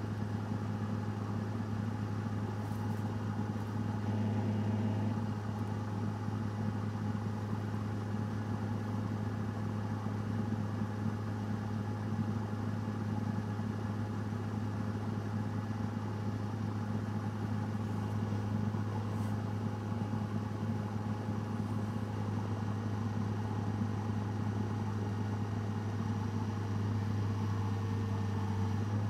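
Diesel engine running steadily at constant speed, an even low drone.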